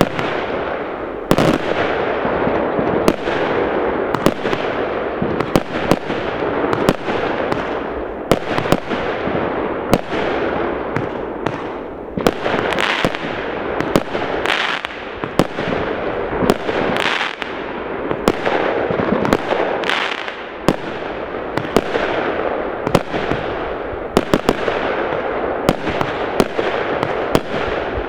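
New Year's fireworks going off continuously: many sharp bangs, several a second, over a steady dense crackle of many distant explosions.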